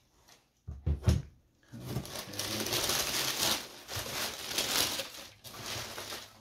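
Handling noise from the shoes and their packaging: a couple of heavy thumps about a second in, then a few seconds of rustling.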